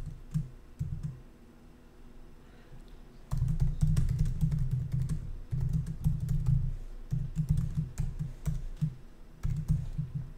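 Typing on a laptop keyboard: a short run of key clicks, a pause of about two seconds, then steady fast typing with brief gaps.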